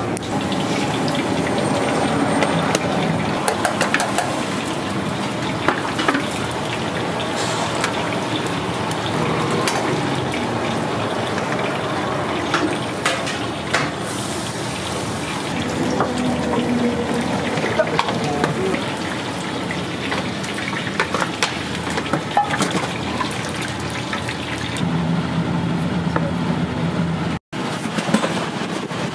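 Busy noodle-shop kitchen at work: running tap water over a steady din, with frequent clatters and knocks of dishes and utensils.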